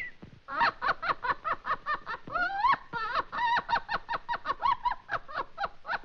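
Cartoon canary's voice: a fast run of short, high chirps and twitters, about five or six a second, with one rising glide about two and a half seconds in.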